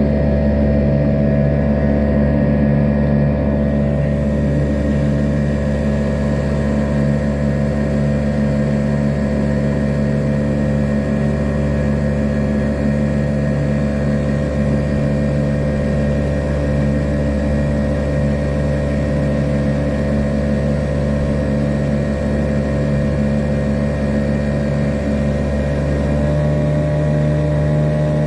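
Small boat's outboard motor running at a steady cruising speed while under way. Its pitch steps up slightly near the end.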